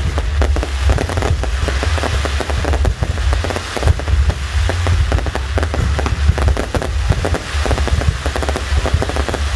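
Fireworks display: a dense, continuous run of crackling pops and bangs over a steady deep rumble of booms.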